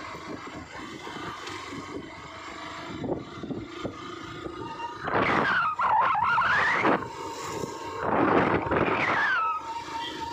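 Noise of a vehicle riding along a road. Three times it is joined by a loud squeal that glides up and down in pitch: the first about halfway in, the second a couple of seconds later, and the third starting near the end.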